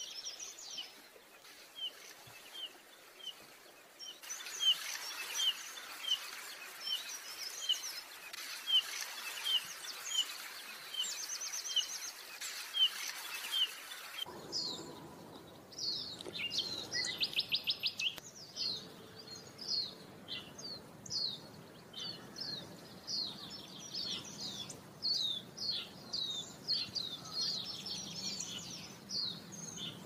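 Yellow-rumped flycatcher calling with a short, repeated chirp at about one note a second. About halfway through, the recording changes abruptly to a fuller song of quick, rising and falling whistled notes, with a fast buzzy trill a few seconds later.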